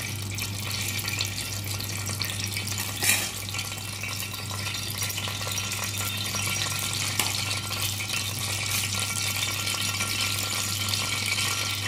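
Cooking oil heating in a frying pan, sizzling and crackling steadily over a steady low hum, with one sharper tick about three seconds in.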